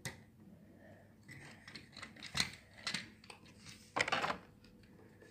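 Plastic parts of a transforming robot toy clicking and knocking as they are handled and pushed together, a few sharp clicks scattered through, the loudest burst about four seconds in.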